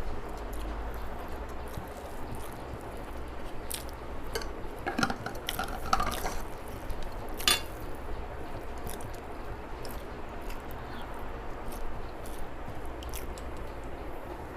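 Eating sounds: food being handled and chewed, with scattered small clicks against a plate and a sharper clink about seven and a half seconds in.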